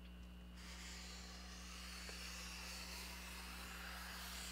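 Black marker drawn across poster board, a faint steady scratchy hiss that starts about half a second in.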